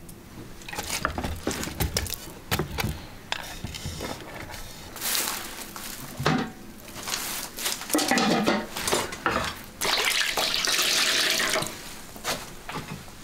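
Water being scooped and poured with a plastic dipper, splashing, with knocks and scrapes of a wok, pots and utensils. About ten seconds in there is a steadier stretch of running, splashing water lasting about two seconds.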